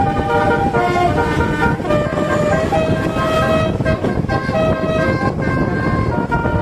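Basuri bus horn, the Indonesian multi-tone musical horn, playing a melody of held notes that step from pitch to pitch every fraction of a second, over a steady low rumble.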